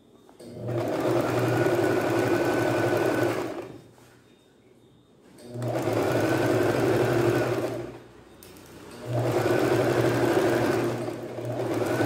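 Singer Start 1306 domestic sewing machine stitching in three runs of two to three seconds each, each run building up and tailing off, with short pauses between them.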